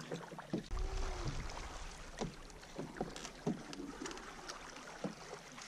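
Canoe being paddled on a slow river: paddle strokes and water lapping against the hull, with a brief low rumble of wind on the microphone about a second in and a few faint, brief voice-like sounds.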